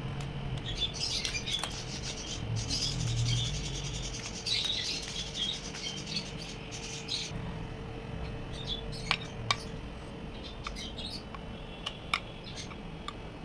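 Utensil scraping and stirring in a mixing bowl for about seven seconds, then a few sharp taps, over a faint steady hum.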